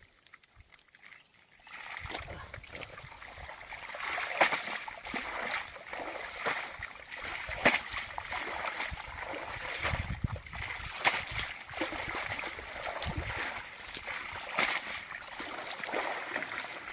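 Water splashing and sloshing, with many short splashes in quick, irregular succession, starting about two seconds in.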